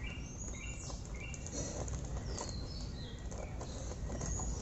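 Birds chirping in the background, a series of short high whistled notes including one falling note about halfway through, over a steady low rumble with a few faint clicks.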